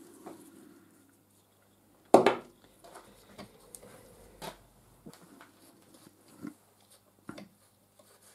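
One sharp knock about two seconds in, followed by several lighter clicks and taps: metal tools and parts being handled while the trimmer's square bolts are undone during the strip-down.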